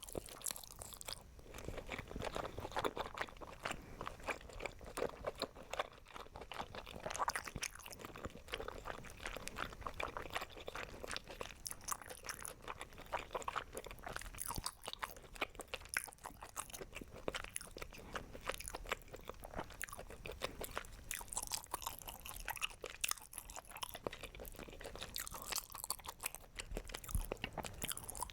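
Close-miked chewing and biting of crunchy food, a continuous run of crisp crunches.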